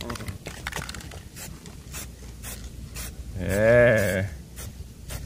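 Aerosol spray-paint can sprayed in short bursts, a faint hiss with brief sharp spurts. About three and a half seconds in, a drawn-out, wavering voice-like sound lasting nearly a second is the loudest thing.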